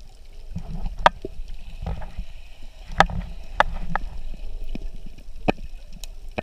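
Muffled underwater sound: a low rumble of moving water with several sharp clicks scattered through it.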